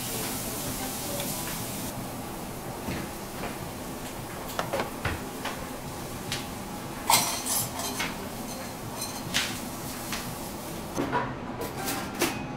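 Wooden pepper mill grinding for about the first two seconds, then scattered clinks and knocks of plates and utensils over a steady background hum.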